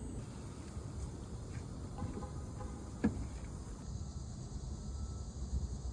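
Steady low background rumble with a faint high hum, and one light knock about three seconds in.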